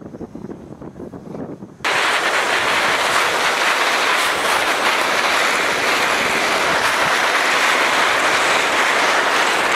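Steady scraping rush of sliding fast down icy, crusted snow, heard close up from the slide itself. It starts abruptly nearly two seconds in, after fainter rustling.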